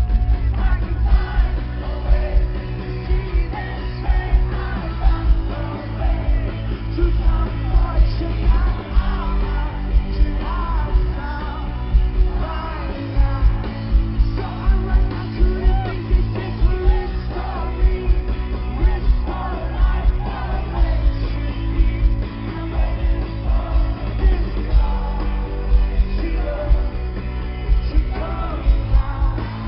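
Rock band playing live: a sung lead vocal over loud drums and bass with a steady beat and a heavy low end, the top end dulled.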